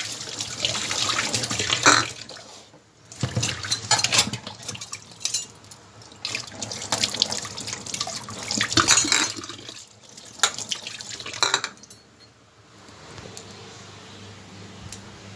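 Tap water running and splashing into a stainless-steel kitchen sink as dishes are washed, in uneven bursts. It stops about twelve seconds in.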